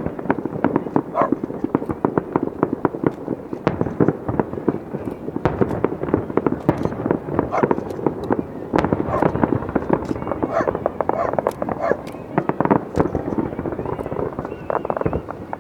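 Fireworks display: a dense, fast run of bursts and crackles going off almost without a break.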